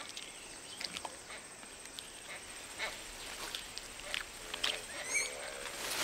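Proboscis monkey feeding in the branches: scattered soft clicks and rustles of leaves and twigs. A bird gives a short wavering call about five seconds in.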